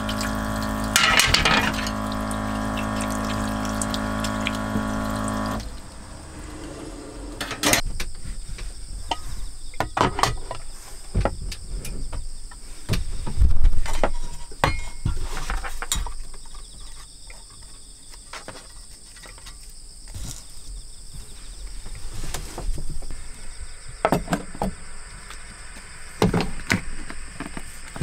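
Water running from the camper sink's tap into a metal basin over a steady pump hum, which stops abruptly about five and a half seconds in. After that come scattered clinks and knocks of cast-iron cookware and a steel bottle being handled and hung on a wooden rack, the loudest a knock about thirteen seconds in. Insects chirp steadily throughout.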